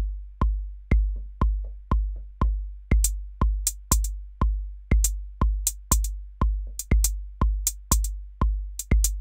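A drum-machine beat from a Native Instruments Maschine MK3 kit loops, with a kick drum thumping steadily about twice a second. From about three seconds in, hi-hat hits join the loop as they are programmed into the step sequencer.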